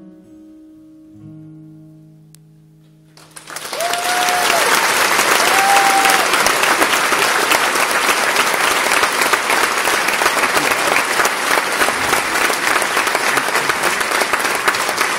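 The last notes of a solo acoustic guitar ring out and fade, then about three seconds in a concert audience breaks into loud applause that runs on steadily, with two long cheers rising above it shortly after it starts.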